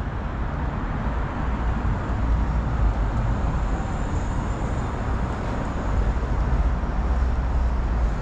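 Steady city street noise: a low rumble of distant traffic, with no distinct events standing out.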